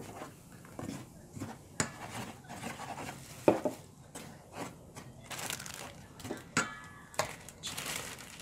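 A spoon scraping and knocking against a stainless steel mixing bowl while stirring a thick flour-and-beer batter, in irregular strokes with a few sharper clinks.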